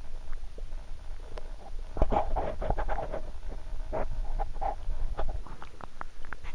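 Muffled underwater sound from a camera held in a shallow gravel river: a low rumble of moving water with scattered irregular clicks and taps, louder in patches.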